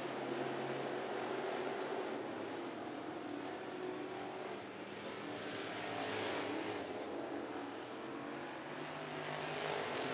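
A pack of classic-bodied dirt-track race cars running hard around the oval, engines at racing speed. The sound swells about six seconds in and again near the end.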